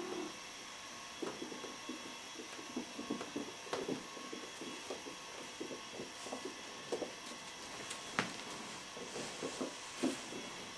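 Kittens play-fighting on carpet: irregular soft thumps and scuffling as they tumble and chase, over a steady background hiss, with one sharper click about eight seconds in.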